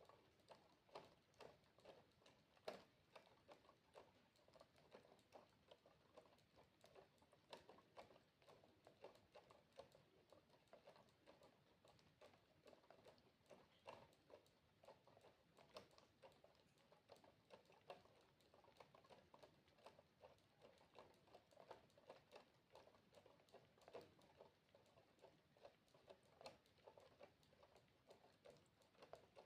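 Water droplets dripping, faint: a continuous run of small irregular drips, several a second.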